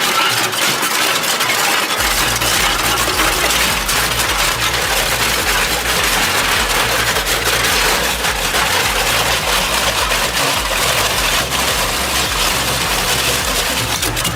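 Heavy industrial shredder running under load: dense, continuous crackling and cracking of material being torn apart. A deep engine drone sets in about two seconds in.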